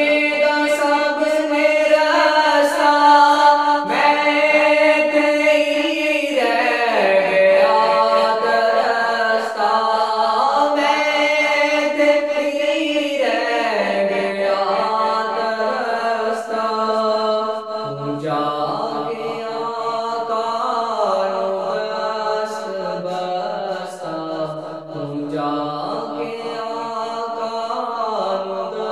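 A man singing an Urdu salaam, a devotional song in praise of the Prophet, in long held notes that slide and shift in pitch.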